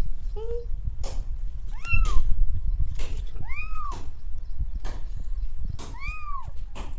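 Domestic cat meowing: a short low meow near the start, then three longer meows about two seconds apart, each rising and then falling in pitch.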